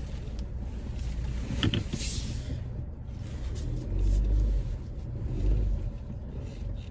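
Car running at low speed, heard from inside the cabin, with a steady low rumble that swells twice near the middle.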